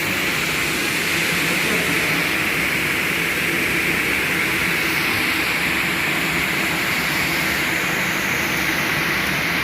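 Double-head aluminium cutting saw running with its blades spinning: a steady, even whirring hiss with no cut in progress.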